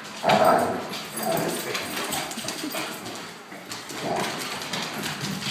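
Akitas vocalizing while play-fighting: the grumbling, growling 'talking' Akitas do in play, broken by louder bursts and yips. It sounds vicious but is play, not aggression.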